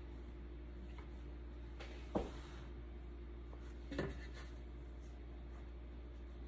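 Hands handling a large sheet of rolled pie dough on a floured granite countertop, lifting its edge to fold it. There is faint rubbing over a steady low hum, and two brief sharp handling sounds, about two and four seconds in.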